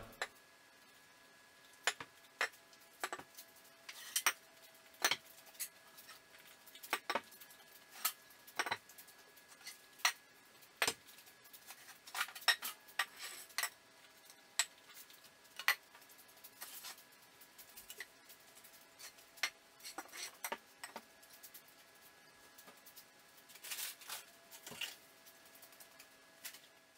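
Irregular light clinks and knocks of hard objects being handled and set down, about one every second or so, over a faint steady hum.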